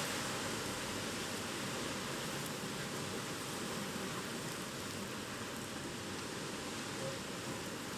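Typhoon wind and rain making a steady rushing noise.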